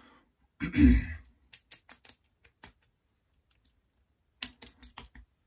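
Aftershave splash being applied with the hands: a dull thud about a second in, then scattered light clicks and pats as it is patted onto the face.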